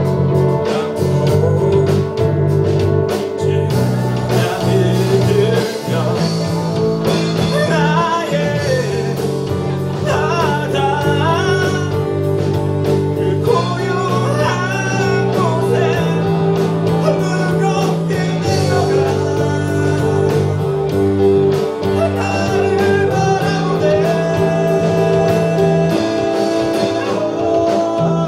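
A band playing a song live, with a lead singer over steadily held bass notes and accompaniment.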